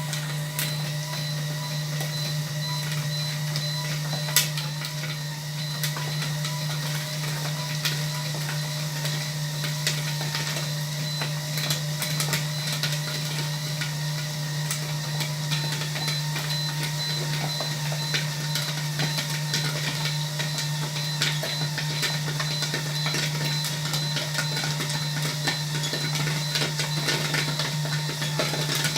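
Low-wattage electric popcorn machine running steadily while the corn cooks: a constant low hum from its stirring motor with scattered light ticks, over the even hiss of the gas stove burner heating the kettle.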